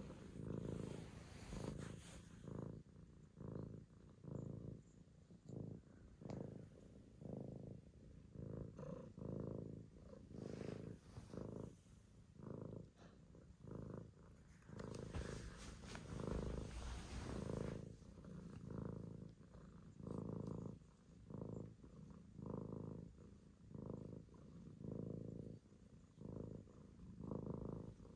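A domestic cat purring steadily while being stroked, the purr swelling and fading about once a second with each breath in and out.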